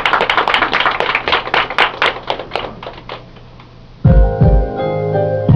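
Scattered hand claps from a small audience, thinning out over the first three seconds. At about four seconds, a keyboard intro with piano-like notes and deep bass notes begins.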